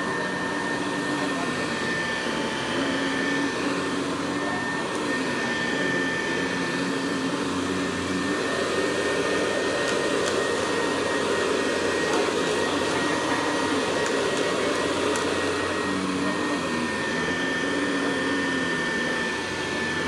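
Hoover Deluxe model 66 upright vacuum cleaner running steadily, its motor giving a constant high whine, with a lower tone underneath that wavers up and down as the cleaner is pushed back and forth.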